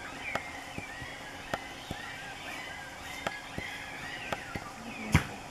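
Night-time forest ambience: short chirping calls repeating over a low hiss, with scattered sharp snaps or clicks. The loudest snap comes about five seconds in.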